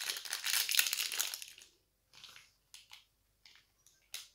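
A small crinkly plastic blind bag being crumpled and torn open by hand: a dense crackle for the first second and a half, then a few short rustles and clicks.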